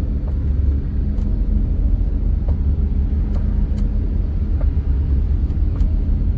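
Maruti Suzuki Alto on the move: a steady low rumble of engine and road noise, with a few faint scattered ticks.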